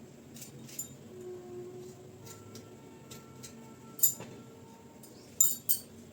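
Fresh ginger being peeled by hand: scattered soft clicks and taps, with a sharper knock about four seconds in and two more near the end.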